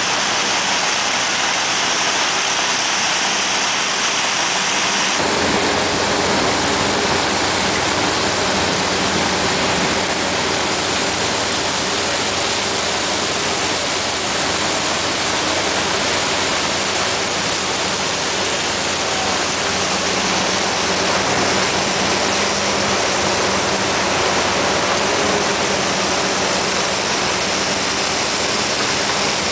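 Steady rushing of bulk coal pouring from a floating crane barge's conveyor chute into a ship's cargo hold. About five seconds in, the low hum of machinery with faint steady tones joins underneath.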